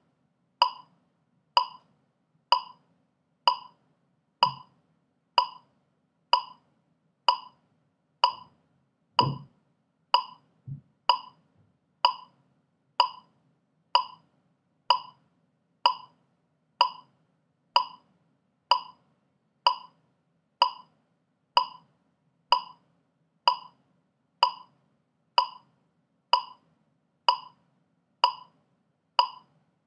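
Metronome clicking at 63 bpm, a little under one click a second, every click identical and unaccented. A few faint low thumps sound in the background around the middle.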